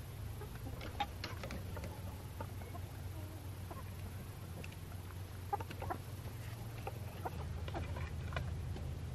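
Hens clucking in short, scattered calls, over a steady low rumble.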